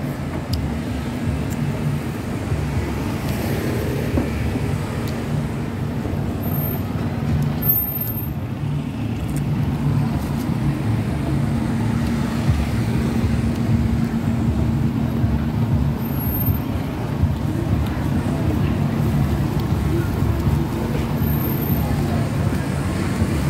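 Busy city street ambience: road traffic running steadily, with a constant low hum and indistinct voices in the background.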